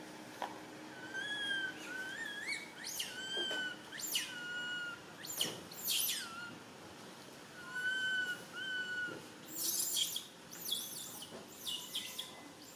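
Infant macaque crying in distress: a string of high, thin whimpering calls, some held and wavering, others quick sharp squeals that shoot up and drop, with a cluster of harsher screams near the end.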